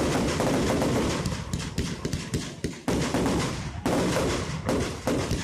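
Fireworks display: aerial shells bursting in quick succession amid dense crackling, with new loud volleys starting about three seconds in and again a second later.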